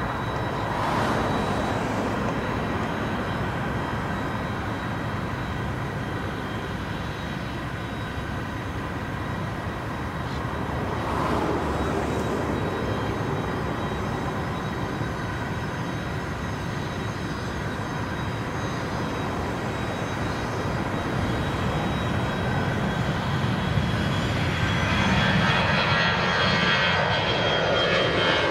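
Twin-engine jet airliner at takeoff thrust, a steady jet roar on its takeoff roll. It grows louder over the last few seconds as the plane lifts off and climbs toward the listener, with a high engine whine that drops slightly in pitch near the end.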